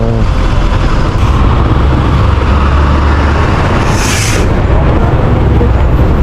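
Wind buffeting the microphone of a moving motorcycle, a heavy low rumble with road noise underneath. A brief hiss comes about four seconds in.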